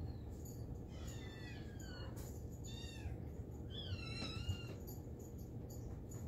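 Kittens mewing: a string of short, high, falling mews, with a longer one about four seconds in.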